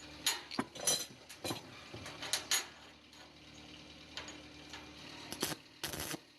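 Irregular sharp clicks and light knocks of metal being handled in a workshop, over a steady low hum.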